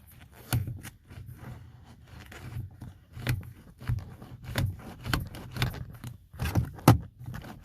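A stiff plastic strip cut from a parmesan cheese container being worked and jammed into a car door, making a run of irregular scrapes and sharp plastic clicks and knocks, the loudest near the end.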